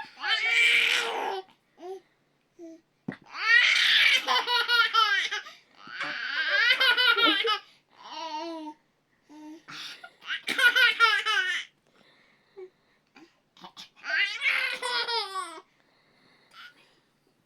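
High-pitched laughter in about six bursts, each a quick run of pulsing ha-ha sounds, with short pauses between them.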